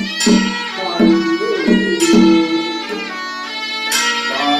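Traditional temple ritual music on stringed instruments: a bowed fiddle and plucked strings play a melody with sliding notes, broken by a few sharp plucked attacks.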